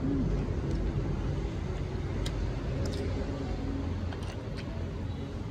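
A steady low background rumble, with a few faint light clicks of a metal spoon against grilled oyster shells.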